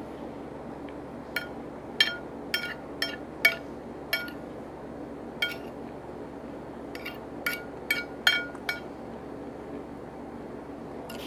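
Eating utensil clinking against a dish about a dozen times, in irregular short bunches, as food is scooped up. Each clink rings briefly at the same pitch.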